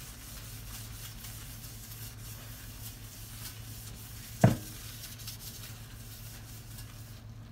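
Folded paper towel rubbing oil over a metal pizza pan, a soft rustling scrub, over a steady low hum. One sharp knock about four and a half seconds in.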